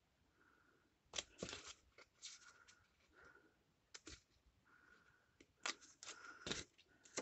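Scissors cutting through paper: a series of short, crisp snips, irregularly spaced.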